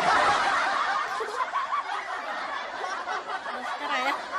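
People laughing and chuckling without a break, loudest in the first second.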